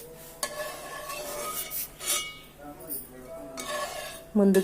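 A few light clinks of kitchen utensils against dishes, over faint background music.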